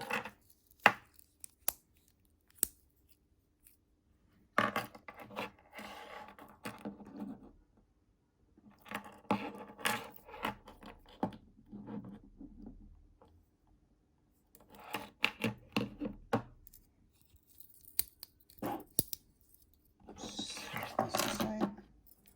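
Small metal multi-tools being handled: sharp clicks and light knocks with bouts of rubbing and scraping, in several clusters separated by short quiet gaps.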